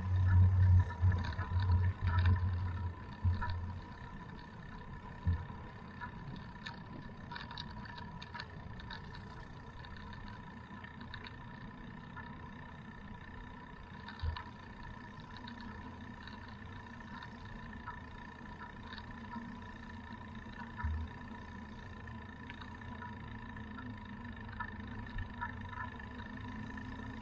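Bicycle rolling along an asphalt street, heard from a camera mounted on the bike. Low wind buffeting hits the microphone for the first few seconds, then there is steady rolling noise with scattered small clicks and rattles, a few single low thumps, and a faint steady whine.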